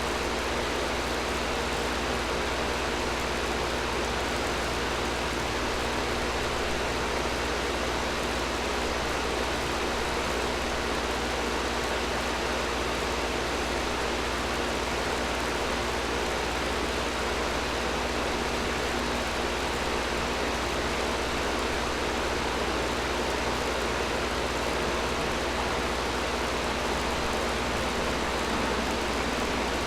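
Air conditioner running steadily: an even rush of blown air with a constant low hum beneath it.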